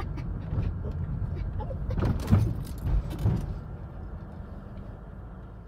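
Car running at low speed, heard from inside the cabin as a steady low engine and road hum, with a few sharp knocks and clicks about two to three and a half seconds in. The hum fades toward the end.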